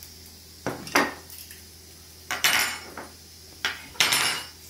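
Metal forks clinking against plates and dishes as cutlery is picked up and set down: about five separate clatters, some ringing briefly.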